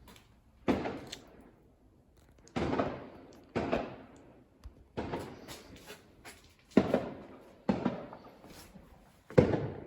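A series of about eight sharp bangs at uneven intervals, each dying away with a short echoing tail.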